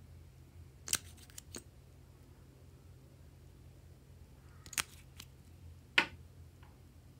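Small plastic clicks and taps from handling a lip tint bottle and its applicator wand: a pair about a second in, two more near five seconds, and the loudest single click about six seconds in.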